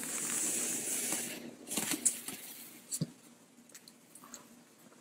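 Faint scratchy rustling for about the first second and a half, then a few light clicks and taps: a dog shifting and getting up on a hardwood floor, its claws scraping and clicking.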